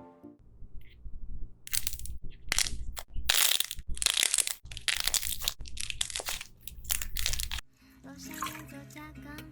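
Slime being squeezed and pressed: a run of sharp crackling, squelching bursts, about two a second. Near the end music comes in.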